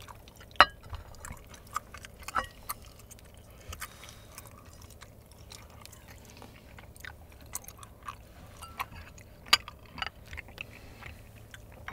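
Light, scattered clicks and clinks of chopsticks and a spoon against ceramic bowls and plates as food is scraped and moved between dishes.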